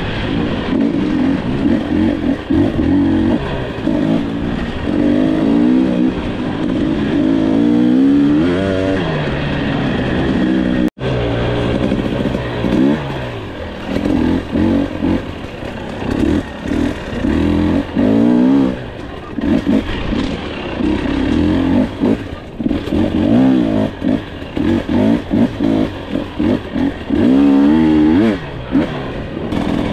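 Dirt bike engine revving up and down while being ridden, the pitch rising and falling with each throttle change. The sound drops out for an instant about eleven seconds in.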